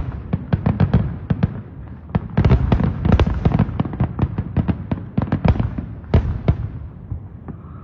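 Many fireworks going off at once: a rapid, irregular barrage of bangs and pops over a low rumble. It thins out near the end.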